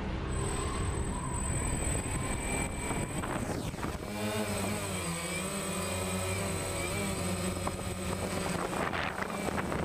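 The intro music fades out over the first few seconds. Then, about four seconds in, the buzz of a DJI Phantom quadcopter's motors and propellers comes in, picked up by the GoPro Hero 3 mounted on it, its pitch wavering up and down as it flies.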